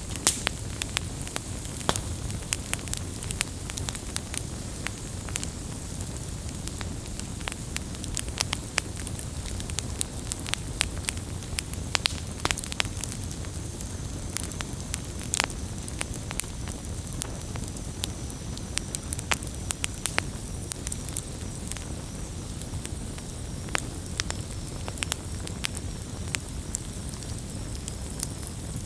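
Wood campfire burning: a steady low rush of flames with frequent irregular crackles and pops.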